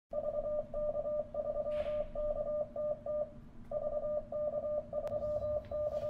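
Morse code sent as a single steady beeping tone, keyed in short and long beeps, from an Icom IC-705 transceiver's CW sidetone. The sending pauses briefly about three and a half seconds in, then carries on.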